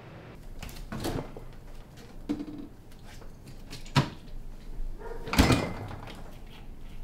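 A series of household knocks and clunks as a door and a refrigerator door are opened and a plastic drink bottle is taken out and handled. The sharpest knock comes about four seconds in, and the loudest clunk about five and a half seconds in.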